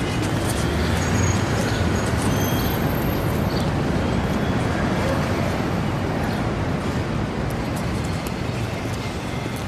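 Steady city street traffic noise, a low rumble of passing cars that eases off slightly near the end.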